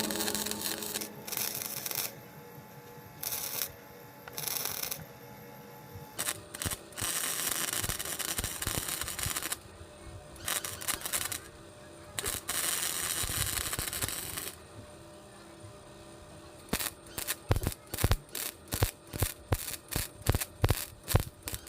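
MIG welder arcing on a steel motorcycle frame, in crackling bursts of a second or two with pauses between, then a quick run of short tack welds at about two a second near the end.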